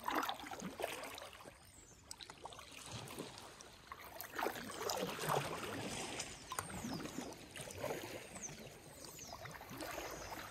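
Kayak paddle strokes: the blades dip into calm lake water with small splashes and drips, in an uneven rhythm.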